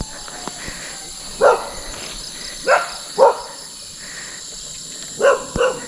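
Dogs barking, five short barks spread across a few seconds, over a steady high chirring of insects.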